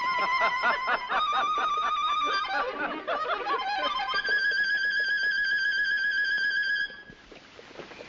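A small wind instrument played by hand at the mouth. It holds notes with vibrato, breaks into a quick warbling run, then holds one long note that stops abruptly about seven seconds in.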